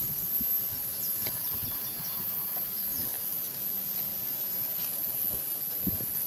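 Insects buzzing in a steady high-pitched drone, with a few faint rustles and taps from someone moving along a tree trunk.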